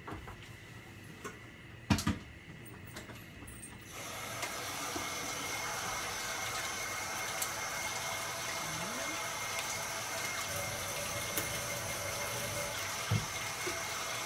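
A kitchen faucet is turned on about four seconds in and runs steadily into a stainless steel sink, filling a container. Before it, a few sharp knocks about two seconds in, and another knock near the end.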